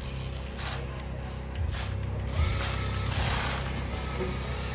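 Small electric motors of a remote-control model excavator running with a steady whir, with a few brief scraping noises in between.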